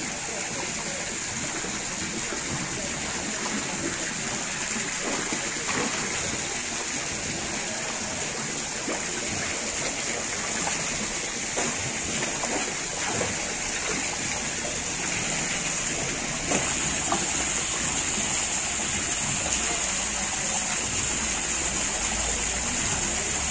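Shallow water in a fish tank rushing and splashing steadily, with scattered small splashes from wading and from fish moving in the water. The rush gets louder about two-thirds of the way through.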